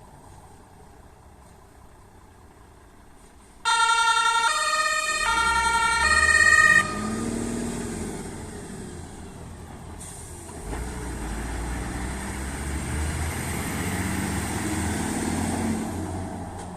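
An emergency vehicle's two-tone siren (the German Martinshorn) sounds a few seconds in, alternating between two notes about four times over some three seconds, then cuts off abruptly. The vehicle's engine keeps running and grows louder in the second half.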